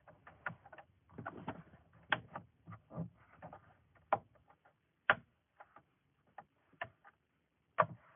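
A string of irregular light clicks and knocks, about a dozen, spaced unevenly, as of small objects being handled.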